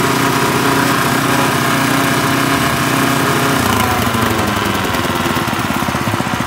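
Small petrol engine driving a grass chopper runs steadily at high speed, then a little over halfway through its pitch drops and it slows to a lumpy, pulsing idle as the throttle is pulled back.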